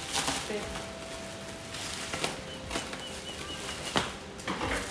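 Bubble wrap and plastic packaging rustling and crinkling as it is pulled and unwrapped by hand, with sharp crackles, the loudest about four seconds in.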